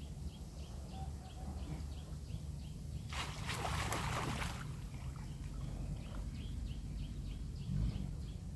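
Water splashing for about a second and a half, a few seconds in, as a collapsible mesh fish trap is hauled up through a pond. Behind it are a low rumble and a steady series of small high chirps, about two a second.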